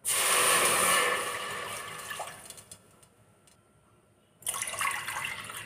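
Water poured from a steel cup into a stainless steel pot, splashing on the metal bottom. The first cupful runs loudly for about two seconds and tails off; after a short pause a second pour starts near the end.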